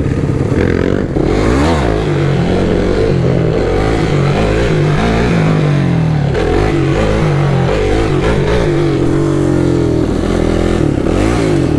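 Motorcycle engine under the rider, revving up and down so that its pitch rises and falls several times, over a steady rush of riding noise.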